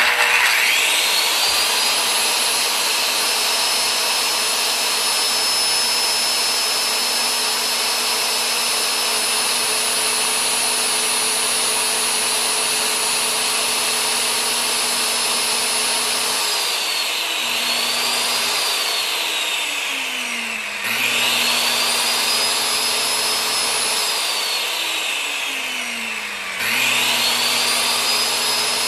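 Old corded circular saw (Skilsaw) switched on and spinning free with no cut, giving a steady high motor whine. About sixteen seconds in it is released and winds down, then it is triggered three more times, each time spinning back up after a short coast-down.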